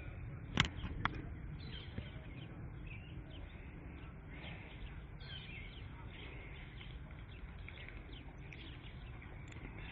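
Small birds chirping on and off over a steady low background rumble, with two sharp clicks about half a second and a second in.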